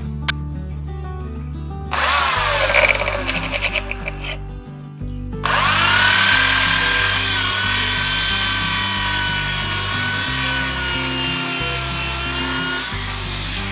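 Power tool working wood. It gives a short, rough, pulsing burst about two seconds in. From about five seconds it spins up into a steady high whine that runs until near the end. Background music plays underneath.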